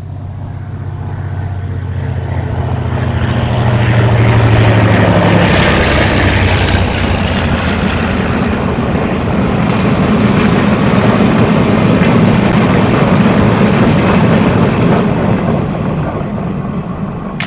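Diesel locomotive hauling a freight train of hopper wagons passes close by. The engine's drone builds and is loudest as the locomotive goes past, about five seconds in. Then comes the steady rolling rumble of the wagons on the rails.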